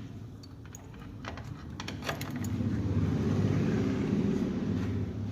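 Light metallic clinks of tools and gear parts, a few scattered in the first two and a half seconds, while fifth gear is taken off a Renault Sandero manual gearbox. A low rumble then swells, peaks about halfway through and eases off.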